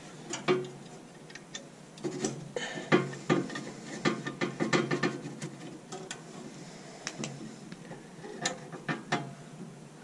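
Hand tool working on the sheet-metal burner assembly inside a gas-fired steam boiler: irregular runs of short metal clicks and knocks, bunched into quick clusters a few times.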